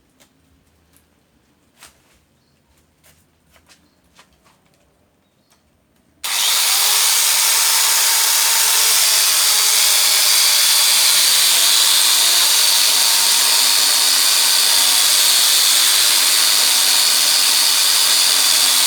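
Electric angle grinder fitted with a chainsaw attachment starts suddenly about six seconds in and runs steadily at full speed with a high whine, sawing through a rambutan branch. Before it starts there are only a few faint clicks and knocks.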